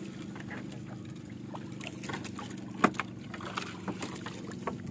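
Water dripping and trickling as a wet fishing net is hauled by hand out of the sea over the side of a small outrigger boat, with a steady low hum underneath and one brief sharp knock nearly three seconds in.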